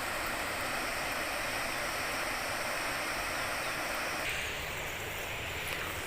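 Steady rushing of falling water from a nearby waterfall, an even hiss with no distinct events; the sound shifts slightly about four seconds in.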